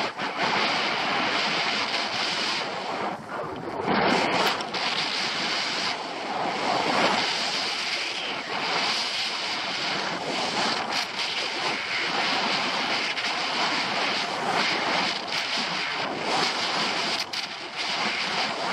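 K2 skis sliding and scraping over packed, tracked snow: a continuous hiss that rises and falls through the turns, mixed with wind buffeting the microphone.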